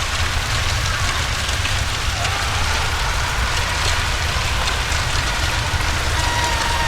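Hell ambience sound effect: a steady, dense crackling hiss over a deep low rumble, with faint wavering tones drifting in and out.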